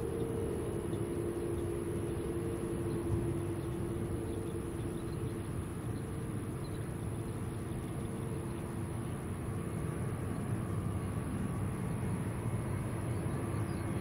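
Jet airliner engines running, a steady rushing noise with a low hum; two whining tones in it fade about halfway through.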